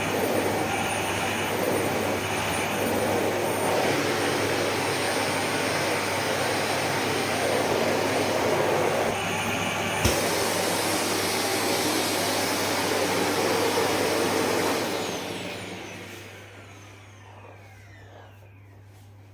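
Electrolux SilentPerformer Cyclonic bagless vacuum cleaner running steadily while vacuuming, with a single sharp click about ten seconds in. Near the end its motor winds down with a falling whine.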